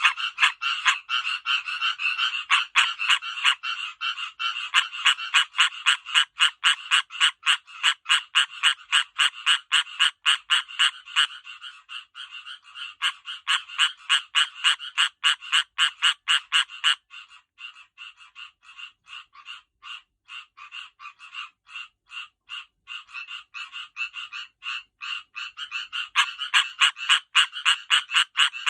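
Male tree frogs calling in a rapid chorus, short high-pitched croaks repeated several times a second, the calls of frogs getting ready to breed. Several frogs overlap at first; the chorus thins from about eleven seconds in and builds up again near the end.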